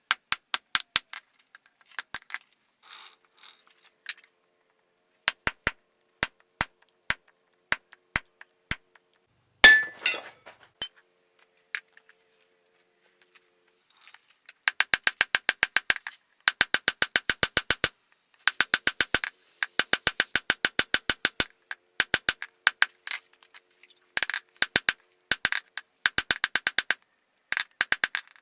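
Hammer blows on hot steel at an anvil, each strike ringing. A few scattered blows come first, then, from about halfway through, runs of quick, even strikes at roughly five or six a second, broken by short pauses.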